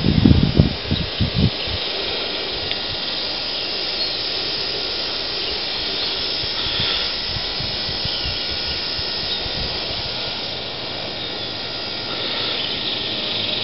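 A steady, even hiss, with a few low knocks in the first second and a half.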